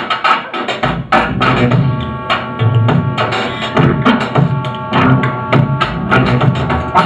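Music with drums and percussion keeping a steady beat; a held pitched tone sounds through the middle.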